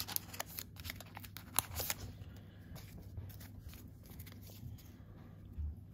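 A Pokémon booster pack's foil wrapper crinkling and crackling as it is torn open, dense over the first two seconds. Then quieter rustling and sliding as the cards inside are handled against each other.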